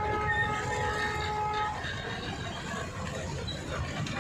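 A vehicle horn held on one steady chord, cutting off about a second and a half in, over the low rumble of traffic engines.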